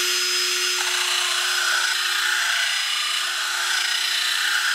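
Cordless drill on its highest speed spinning a carbide stud sharpening tool against a snowmobile traction stud: a steady motor whine under a continuous grinding hiss. This is the second stage, the tool backed off slightly to blend the exposed carbide tip into the stud's body.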